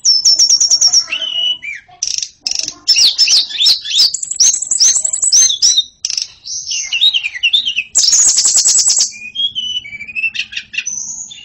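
White-rumped shama (murai batu) singing a fast, varied song of loud high whistles and slurred notes, with runs of rapid repeated notes at the start and again about eight seconds in.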